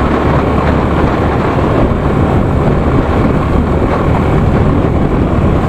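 Motorcycle engine running while riding, with wind rushing over the microphone.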